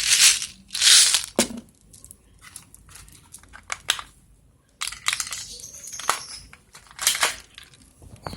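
Rustling and sharp clicks of airsoft BBs being refilled into a spring-powered Glock 17 pistol, in several short bursts.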